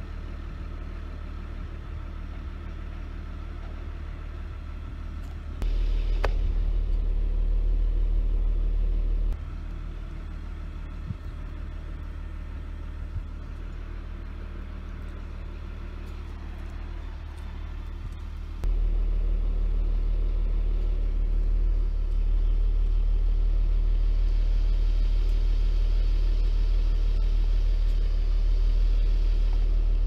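Crane truck's engine running at a steady speed, stepping up in loudness twice: for a few seconds about six seconds in, then again about two-thirds of the way through and holding there, as the crane works the lift.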